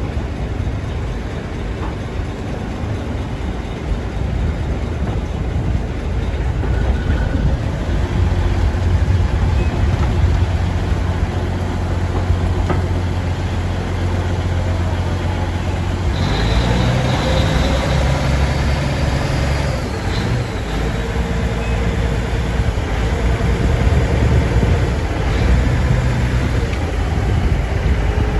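A boat's engine running steadily while the boat is under way on the river, over a steady rushing noise. About halfway through, the engine note changes and becomes a steadier, clearly pitched hum.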